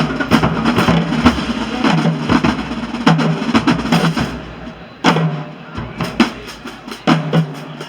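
Marching band playing, with the drums prominent and sharp, regular drum hits. The band drops quieter about four seconds in, then comes back with a loud hit about a second later.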